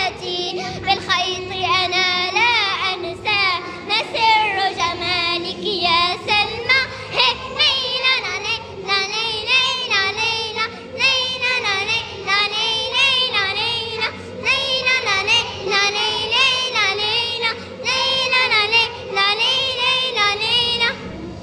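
Young girls singing a song, their voices wavering up and down in melody without a break.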